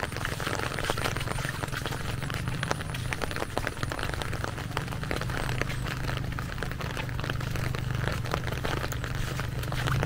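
Steady rain falling, with many small drop clicks over a continuous hiss and a steady low hum underneath.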